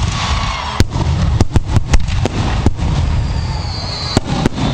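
Fireworks going off at close range: a rapid string of sharp bangs, several in quick succession, over a continuous low rumble, with a whistling tone about three seconds in.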